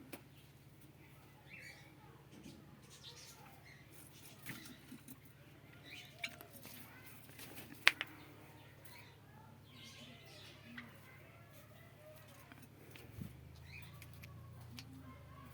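Caged pet birds moving about, with faint chirps and scattered light clicks, and one sharp click about eight seconds in, over a faint low hum.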